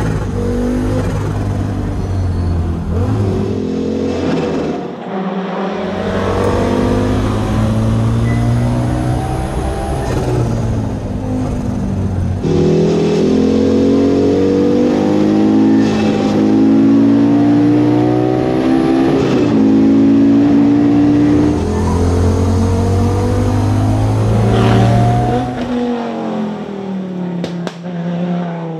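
Audi Sport quattro S1 Group B rally car's turbocharged five-cylinder engine, heard from inside the cockpit, revving hard through the gears at full stage pace. The pitch climbs and drops back at each shift, with brief lifts off the throttle about five seconds in and again near the end.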